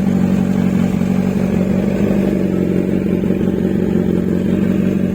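Kawasaki Z1000 motorcycle's inline-four engine running steadily, with no revving.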